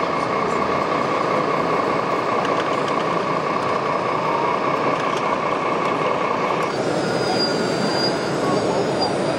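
Radio-controlled model tractor's electric motor and gearing whining at one steady pitch over a constant background hall noise. The whine cuts off suddenly about two-thirds of the way in, and a fainter, higher whine follows.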